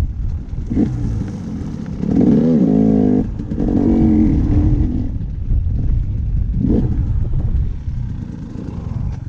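Dirt bike engine riding a trail, its pitch rising and falling as the throttle is worked. It revs louder a couple of seconds in, with short throttle blips near the start and near the end.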